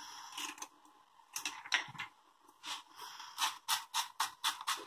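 Stainless-steel salt grinder being twisted over a frying pan: a quick run of dry grinding clicks, about five a second, in the second half, after a few scattered small clicks and knocks.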